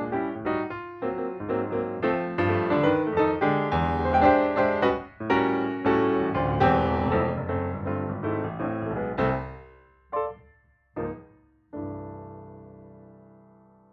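Background piano music: a busy run of notes that thins out about nine seconds in, two short single notes, then a final chord that rings and slowly dies away.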